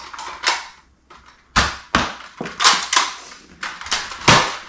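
Toy foam-dart blasters being fired, a string of sharp pops at irregular spacing.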